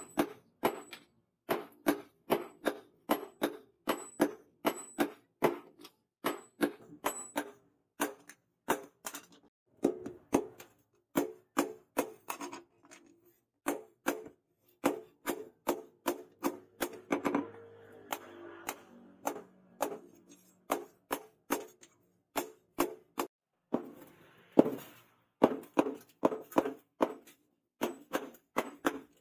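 Hand hammer forging hot leaf-spring steel into a billhook blade on a steel post anvil: sharp metallic blows, about two to three a second, each with a brief ring. The hammering pauses for a few seconds near the middle.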